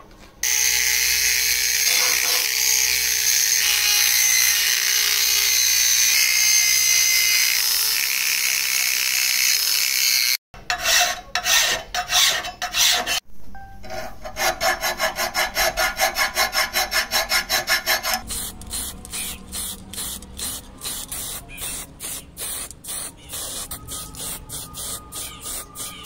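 A power tool grinding and sanding cast iron with a steady loud whir for about ten seconds. It cuts off, and then a hand file rasps on the iron in quick regular strokes, slowing to about two or three strokes a second near the end.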